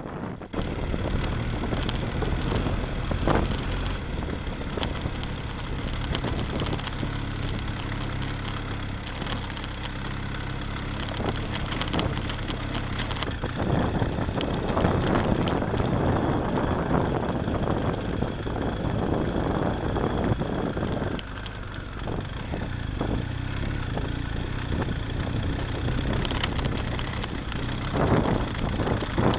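BMW GS adventure motorcycle engine running steadily while riding a gravel track, with wind and tyre noise that grows louder about halfway through. A few short knocks come from bumps on the track.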